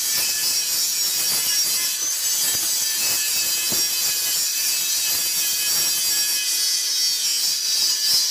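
Stick-welding arc from a Ndeve 160 A inverter welder, crackling and hissing steadily like frying.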